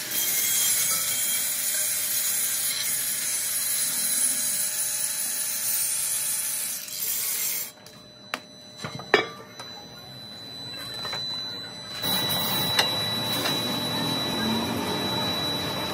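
Handheld angle grinder with an abrasive disc grinding the outer surface of a cast iron truck brake drum, a steady grind that stops abruptly about eight seconds in. A few sharp knocks follow, then a lower steady background noise starts about four seconds later.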